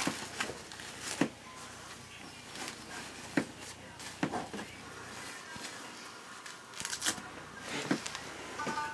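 Rustling and crinkling of a disposable diaper being fitted and fastened, with several short sharp crinkles spread through.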